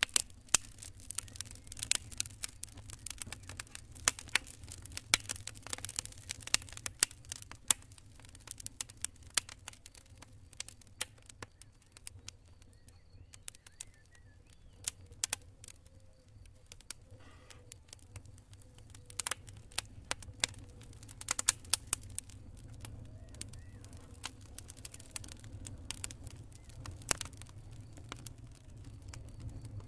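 Wood campfire crackling: irregular sharp pops and snaps of burning wood, several a second, over a low steady rumble.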